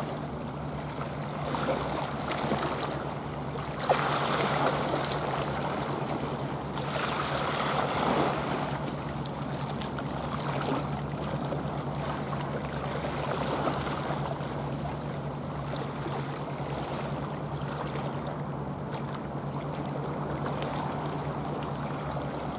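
Small sea waves lapping and washing against a rocky shoreline, swelling louder about four seconds in and again around seven seconds in. A steady low hum runs underneath.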